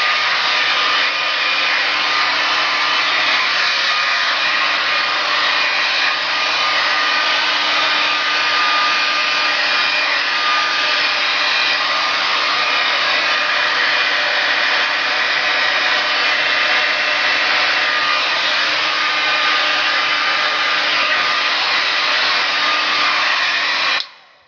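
Handheld hair dryer running steadily, a loud even rush of air with a faint hum in it; it switches off abruptly near the end.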